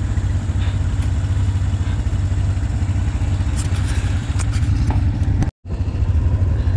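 ATV engines idling steadily on a wooded trail stop. The low, even firing pulse cuts out for an instant about five and a half seconds in.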